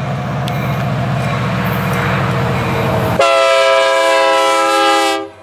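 Approaching diesel freight locomotive running with a steady low engine rumble. About three seconds in, its multi-chime air horn sounds one loud, sustained blast of about two seconds, which cuts off sharply.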